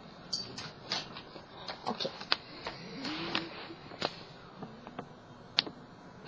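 Scattered light clicks and knocks, irregular and a few per second, from someone moving about a small room and handling things.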